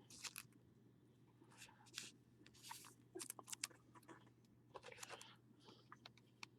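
Faint, scattered clicks and short rustles of trading cards and their packaging being handled.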